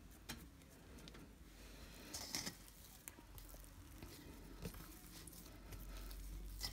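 Soft, sticky dough being pulled from a steel bowl and rolled into balls by hand: faint squishing and patting with scattered light clicks, and a louder rustle about two seconds in.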